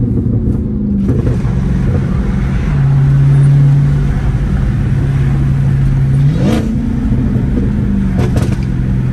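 Supercharged 6.2-litre Hemi V8 of a Dodge Hellcat running while driving, a steady low drone that rises in pitch about six seconds in, holds briefly, and settles back as the throttle is pressed and eased.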